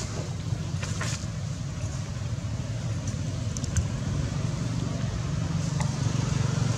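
Low, steady hum of a motor vehicle engine that grows louder near the end, with a few faint clicks.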